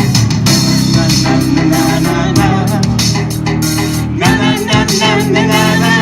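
Live band music: guitar and keyboard over a steady bass line, with a wavering melody line coming in about four seconds in.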